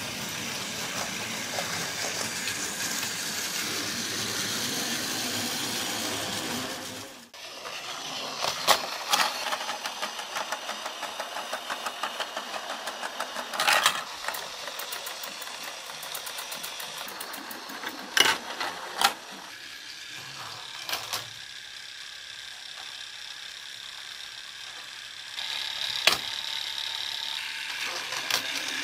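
Battery-powered Plarail toy train's motor and gears whirring steadily as it runs on plastic track, cut off abruptly about seven seconds in. Then rapid ticking and several sharp plastic clacks from the playset's lever-worked lift mechanism, and the toy train's whirring starts again near the end.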